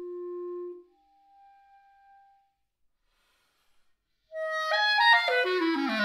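Solo clarinet: a held note, then a soft higher note, a pause of about two seconds, and a loud, fast descending run that lands on a low note near the end.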